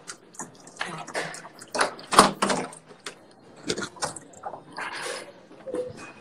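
A series of knocks, clatters and rustling, with the loudest thump about two seconds in, and faint muffled voices under them.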